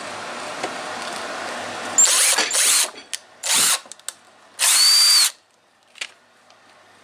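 Cordless drill boring pilot holes through a paper template into a wooden board, in four short bursts, the last and longest about half a second with a rising then falling motor whine, followed by one brief blip.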